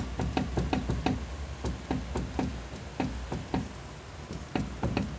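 Quick, uneven series of clunks, about four a second with a short pause near the end, as the right rear wheel of a 1998 Lincoln Mark VIII is rocked back and forth. The clunking is play from a badly worn rear wheel bearing.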